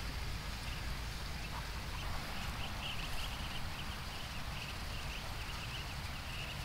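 Muscovy ducklings peeping, many short, faint, high peeps in irregular clusters, over a steady low rumble and hiss.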